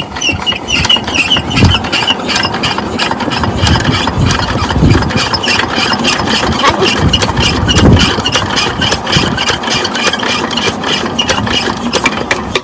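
12 HP single-cylinder diesel water-pump engine running with a fast, even chugging beat.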